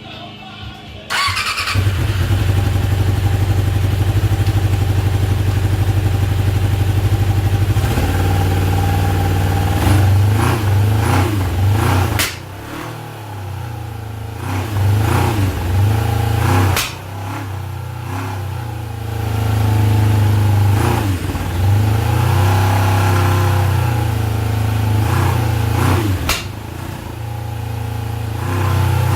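1992 Suzuki GSX600F's inline-four engine starting up about a second in on its first start after a carburettor rebuild, running steadily, then revved up and let fall back several times.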